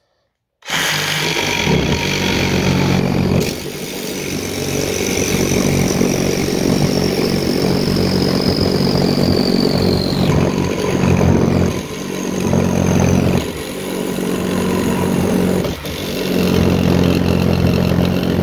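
MAKO cordless reciprocating saw with a metal-cutting blade cutting through steel nails, a screw and a 14 mm bolt. It starts about half a second in and runs continuously, easing off briefly three times, with a high metallic squeal that slowly falls in pitch midway through.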